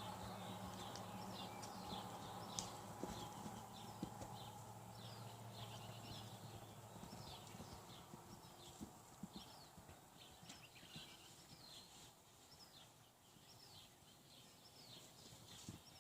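A horse moving at a steady gait, its hoofbeats coming in an even rhythm of about two a second and growing fainter.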